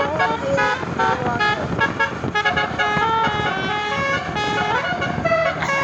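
Tour bus's telolet basuri musical air horn playing a fast tune of short stepped notes, over steady road noise.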